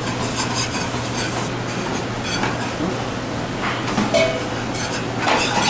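Wire whisk stirring flour into melted butter in a stainless steel sauté pan to make a roux: a steady scraping swish with scattered light clinks of the whisk on the pan, over a steady low hum.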